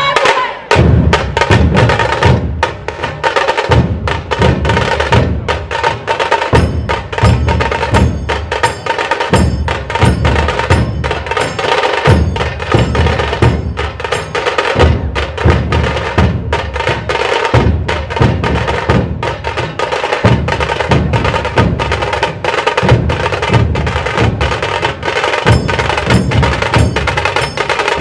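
Dhol tasha ensemble drumming: deep dhol beats thump under a dense, fast run of sharp tasha stick strokes, without a break.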